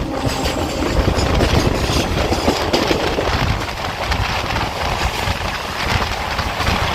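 Suburban electric local train running between stations, heard from inside the coach: a steady rumble of wheels on the rails with irregular clatter.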